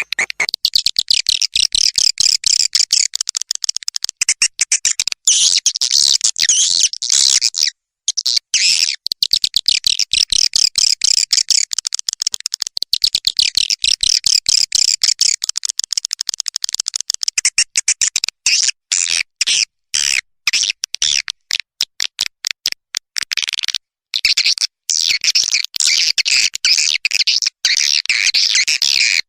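Swiftlets twittering in rapid, dense trains of high-pitched chirps, broken by a few short pauses: a swiftlet lure call (suara panggil walet) of the kind played to draw birds into swiftlet houses.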